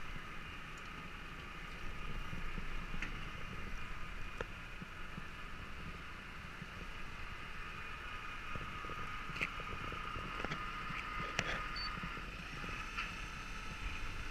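Steady mechanical hum with a high whine from the car-transporter truck with lift tables, broken by a few light clicks.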